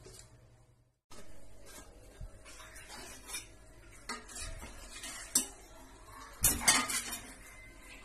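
Stainless steel bowl and utensils clinking and knocking against each other, with scattered single clinks and a louder cluster of clanks about six and a half seconds in. The sound breaks off briefly about a second in.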